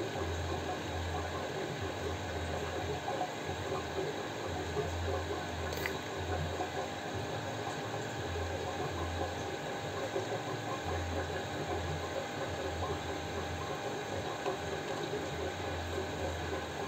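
Steady mechanical hum and hiss with a low throb that comes and goes every second or two, and one short click about six seconds in.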